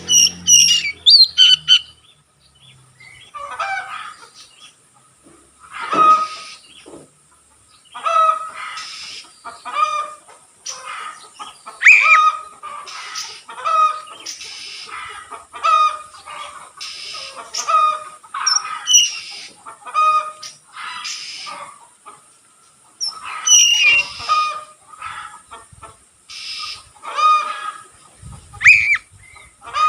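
Oriental magpie-robin (kacer) singing in full voice: loud, varied phrases of whistles and harsh notes repeated about once a second, with a brief pause about two-thirds of the way through.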